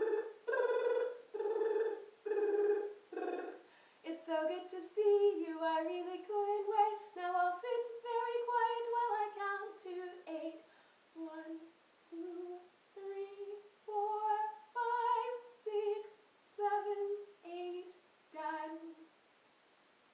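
A woman humming a simple children's song tune with no words: first a few held notes pulsing about once a second, then a quicker running melody, then short separate notes about a second apart that stop shortly before the end.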